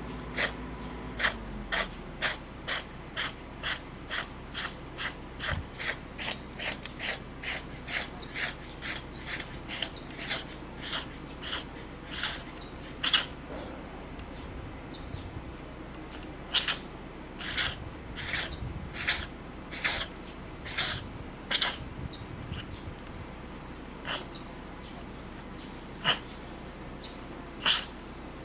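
Cat sneezing violently over and over, wet sneezes that spray out nasal mucus. A rapid run of sharp sneezes about two a second, then sneezes in looser clusters with pauses, the last few spaced out.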